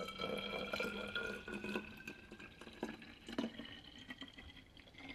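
Kombucha poured from a glass jar into a narrow-necked glass bottle: a splashing trickle whose ringing pitch rises as the bottle fills. After about two seconds it eases off into drips and a few light taps.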